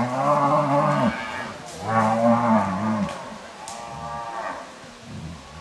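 Cattle mooing: three long, low calls, the last one fainter.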